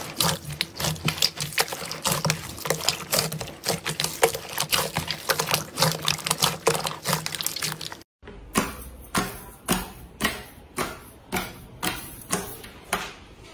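Hands squeezing and kneading wet red slime in a bowl, a dense stream of squelching and crackling. After a short break about eight seconds in, fingertips press into a sheet of clear green slime, one wet squelch about every half second.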